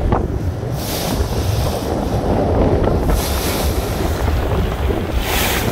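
Wind buffeting the microphone over the rush and splash of water breaking along a ferry's hull, with a steady low rumble underneath. The hiss swells three times, about a second in, around three seconds, and near the end.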